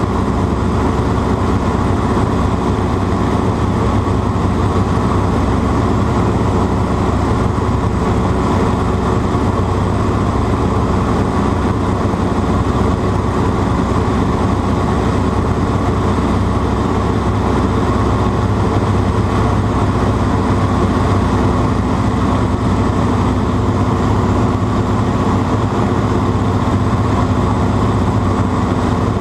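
Grumman Ag-Cat crop-duster's engine running steadily: a loud, even drone.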